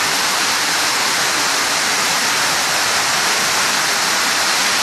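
Floodwater rushing down a garage ramp into a flooded underground car park: a loud, steady torrent.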